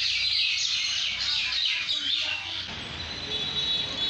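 A flock of mynas chattering, with dense, rapid, repeated calls that die down after about two and a half seconds.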